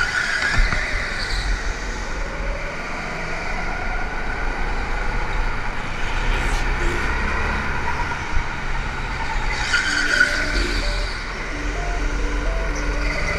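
Go-kart engines running steadily, with music starting to come in near the end.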